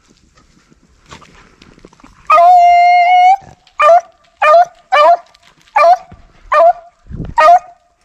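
A rabbit hound baying: one long drawn-out bawl about two seconds in, then six short yelps at a steady pace, the voice a hound gives while running a rabbit's trail. A low thump comes near the end.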